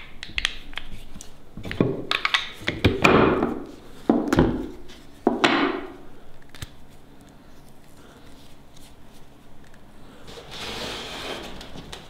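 An ink-stick mould being handled by hand: a run of sharp clacks, knocks and short scrapes as its blocks are knocked and slid against each other, most of them in the first half. A softer scrape comes near the end.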